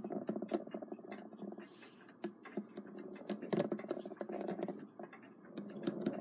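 Gear train of an Edison Home Model D phonograph spring motor, with its solder-repaired pinion, spun by hand: a fast whirring patter of gear teeth clicking, swelling and easing as it is spun. The gears mesh smoothly with no binding.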